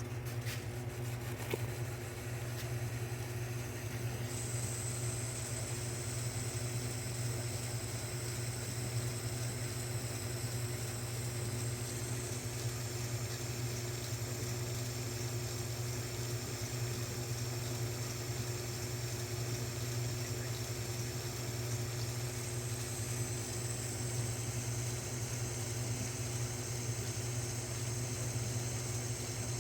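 1938 South Bend 9 lathe running steadily under power feed while turning a 416 stainless steel bar, with a constant low motor hum. A faint high whine joins about four seconds in.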